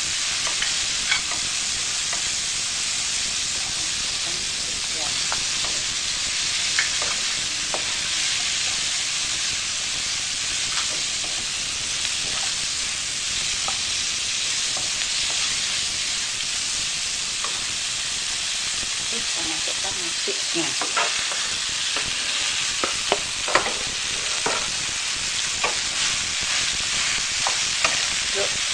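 Steady sizzling of cabbage, shredded chicken and spice paste stir-frying in a wok, with the scrape and knock of a spatula against the pan. The knocks come more often in the last third.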